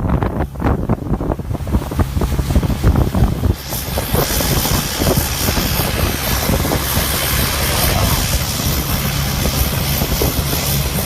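Motorboat engine running steadily under way, with wind buffeting the microphone. About a third of the way in, a steady rushing hiss of water joins it.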